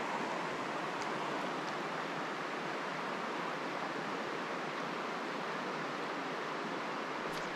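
Steady rushing of river current flowing through rocky pocket water around a wading angler.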